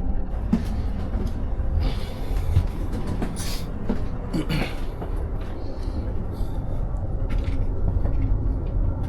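Steady low rumble of a moving passenger train heard from inside the car, with scattered clatters and knocks.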